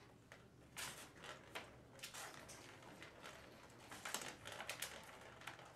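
Faint, irregular clicks and rattles from a plastic circular ball-track cat toy as kittens bat at it and climb in it, the ball knocking along inside the track. The clicks come thickest about two seconds in and again between four and five seconds.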